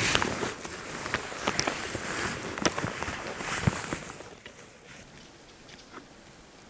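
Rustling with scattered sharp clicks and knocks, settling to a faint hush after about four seconds.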